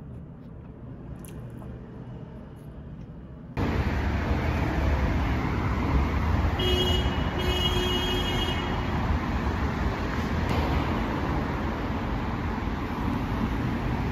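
Low room tone, then from about three and a half seconds in the steady noise of road traffic on a city street. A short two-part pitched beep sounds about halfway through.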